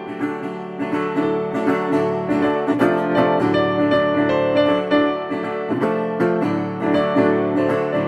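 Instrumental background music led by a plucked acoustic guitar, many short notes in quick succession.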